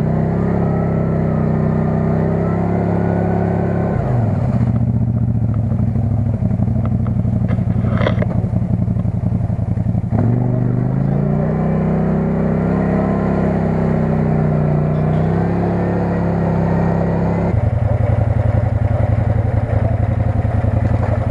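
CFMoto CF-800 side-by-side's V-twin engine running under load as it wades through deep muddy water. Its pitch dips and climbs again about four seconds in and again about halfway through.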